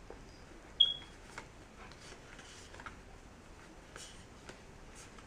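Faint, scattered taps and light handling sounds of a stack of trading cards being gathered and straightened, with a short high beep-like tone about a second in.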